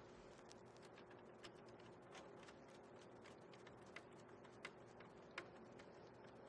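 Near silence with faint, irregular small clicks and ticks of a control wire being handled and pushed into a drive's terminal block, over a faint steady hum.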